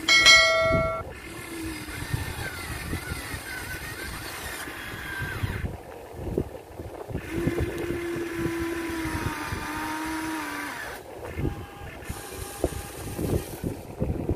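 Huina 1593 RC excavator's small electric motors whining, rising and falling in pitch as the arm digs and the upper body swings, with the bucket scraping and clicking in the dirt. A loud pitched tone sounds for under a second at the start.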